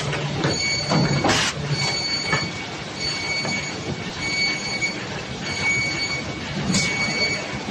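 Three-knife book trimmer machine running: continuous mechanical clatter with a high whine that comes and goes, and louder rushes of noise about a second in and again near the end.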